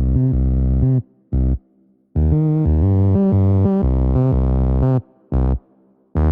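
Background electronic music: synthesizer and bass notes in stop-start phrases that cut out abruptly into brief silences several times.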